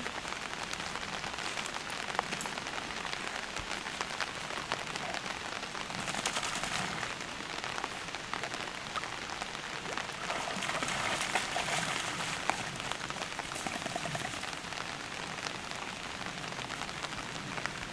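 Rain falling steadily on lake water, a dense patter of small drop ticks that swells a little twice.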